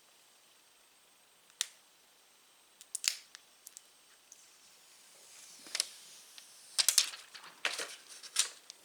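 Sharp clicks and taps of a new smartphone being handled: single clicks early on, then a quicker cluster of clicks in the second half, with a brief soft rustle just before it.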